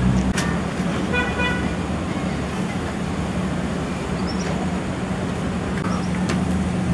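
Steady road-traffic noise with a constant low drone, and a short vehicle horn toot about a second in. A few faint bird chirps and light clicks sit above it.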